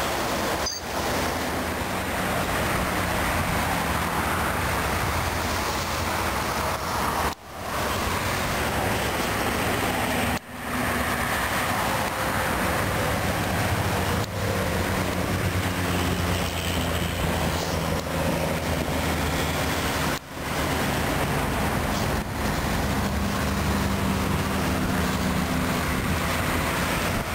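Steady road traffic on a busy multi-lane highway: cars and trucks passing with a continuous low engine drone and tyre noise. The sound cuts out briefly four times.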